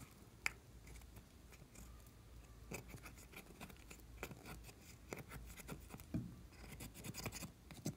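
Fingers scraping and crumbling pressed eyeshadow out of a makeup palette: faint scratching with a sharp click about half a second in and clusters of quick scratchy ticks in the second half.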